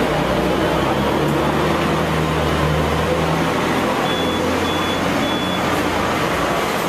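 Hong Kong double-decker tram running: a steady rumble with a low motor hum. Three short, high, evenly spaced beeps sound just past the middle.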